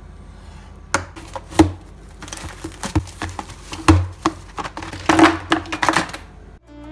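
Delivery package being opened and handled: plastic and card packaging crinkling and tearing, with irregular knocks and taps.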